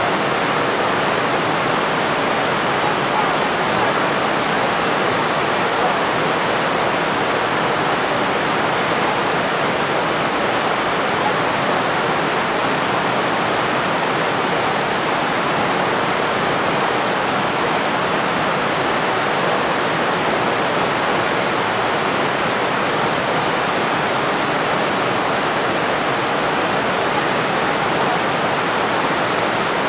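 Steady, even rush of falling water from the Iguazú Falls.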